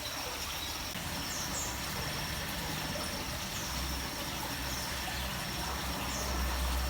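Small aviary birds giving short, high chirps every second or so, over a steady thin high-pitched tone and a low rumble that grows louder after a few seconds.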